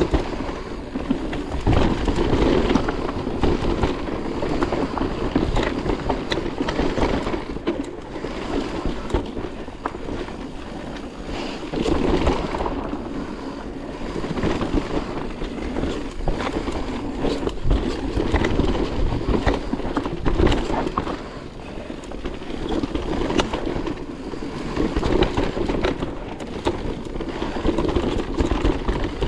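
Electric mountain bike riding fast down a dirt forest trail: tyres rolling and skidding over dirt and roots, the bike rattling and knocking over bumps, with wind on the microphone.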